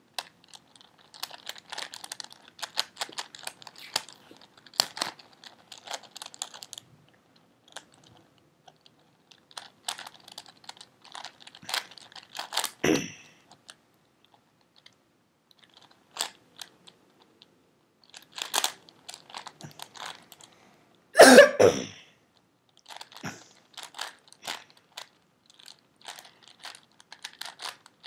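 A plastic 4x4x4 Rubik's cube being turned by hand: bursts of rapid clicking and clacking as the layers turn, broken by pauses, with a few louder cracks; the loudest comes about three-quarters of the way through.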